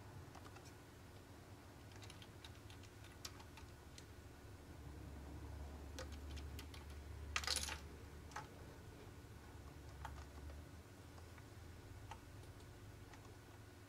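Faint computer keyboard typing in scattered short runs of keystrokes, with a louder quick flurry of keys about seven and a half seconds in.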